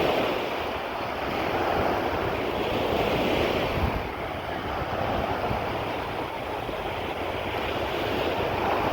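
Sea waves washing onto the shore, surging and easing, with wind rumbling on the microphone.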